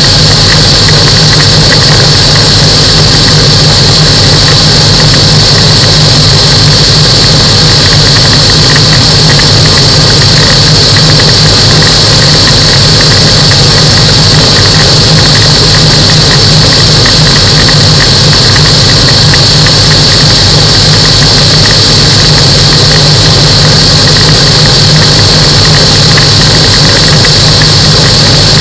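Microlight aircraft's engine and propeller running steadily in flight, heard loud and constant from on board, with a steady high-pitched whine over the low drone.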